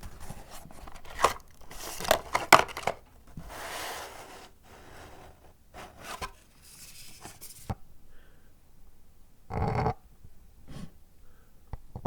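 Paper packaging being handled: irregular sharp crinkles, rustles and a tearing sound, with a louder half-second rustle about nine and a half seconds in.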